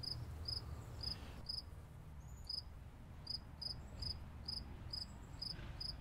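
A cricket chirping, short high-pitched chirps repeating about twice a second, over a low steady hum.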